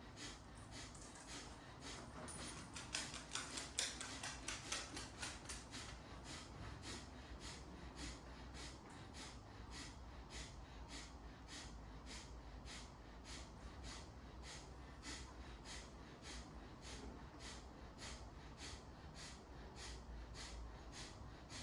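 Kapalabhati breathing: quick, forceful exhalations puffed out through the nose in an even rhythm of about two a second. The strokes are somewhat louder about three to five seconds in.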